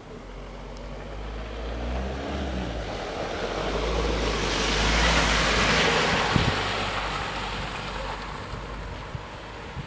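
A car driving over a snow- and slush-covered road, its tyres hissing through the slush over a low engine hum. The sound swells to a peak about halfway through and then fades, with a short knock about six seconds in.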